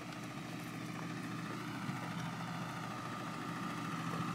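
A vehicle engine running steadily at low revs, with a faint high whine that grows a little stronger partway through.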